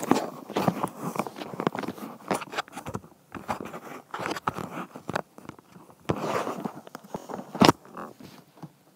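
Handling noise of a camera being picked up and moved by hand: irregular rubbing, scraping and knocking as fingers and surfaces brush the microphone, with a sharp knock near the end.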